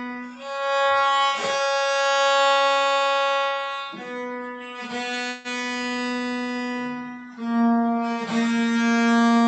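Bass viol (viola da gamba) bowed in slow held notes, a soft short note followed by a longer, louder one. It is an exercise in controlling bow weight and speed.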